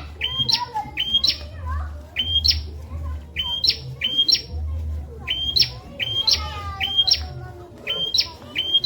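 A prinia (prenjak) singing its loud, repeated chirps. Each note is a short flat tone that flicks sharply upward, mostly given in quick pairs and repeated with short pauses throughout. A low hum runs underneath.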